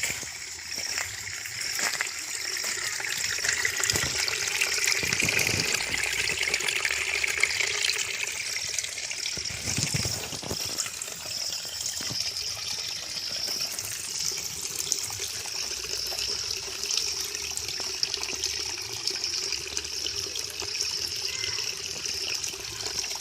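Water running in a steady trickle, with a few soft knocks in the first half.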